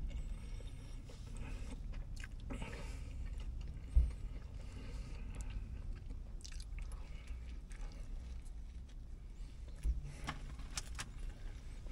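A person chewing a mouthful of a chicken Philly sub sandwich over a steady low hum. A sharp dull thump about four seconds in is the loudest sound; a smaller knock and a few clicks follow near the end.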